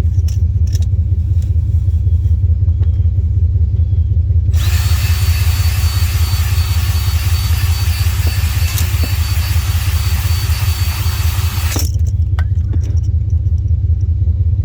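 An aerosol lubricant can spraying into the engine's cylinder bore during honing: a hiss with a faint thin whistle, starting about four and a half seconds in and stopping abruptly about seven seconds later. A steady low rumble runs underneath.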